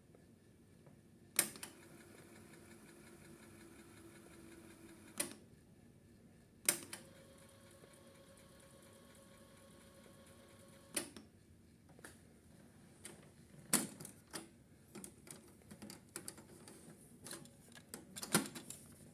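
Sansui D-77F cassette deck's transport mechanism operated: sharp mechanical clicks as the controls engage and release, with a faint steady motor hum running for a few seconds between some clicks, then a quicker string of smaller clicks and rattles near the end.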